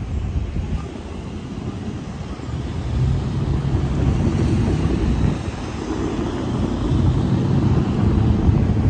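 Road traffic: cars and SUVs driving through a wide intersection, a steady rumble of engines and tyres that swells twice as vehicles pass close by.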